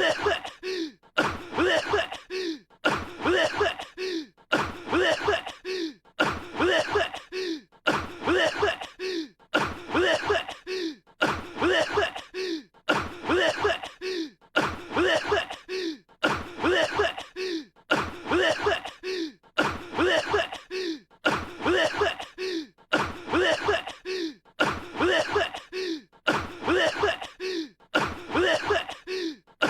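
Male anime character's acted coughing, in short fits that repeat at an even pace of roughly one a second, with brief pauses between them.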